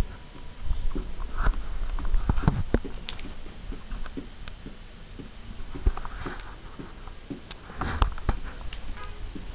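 American Pit Bull Terrier sniffing in short bursts, with scattered clicks and knocks.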